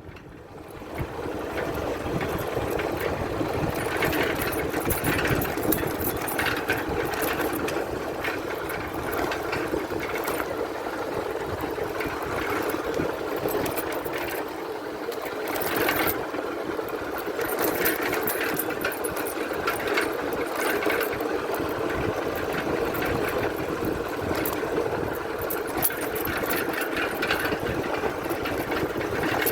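A small engine running steadily, a fast even chatter with no clear change in speed.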